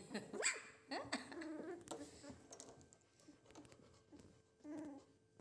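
Young puppies whimpering and squealing: a high squeal about half a second in, a string of whines just after, and another short whine near the end.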